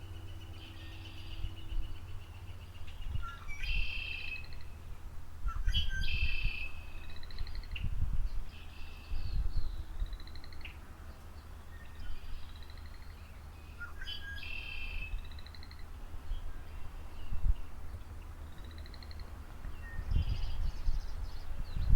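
Several birds chirping and trilling in short, repeated calls, some as fast rattling trills, over a steady low rumble that swells irregularly.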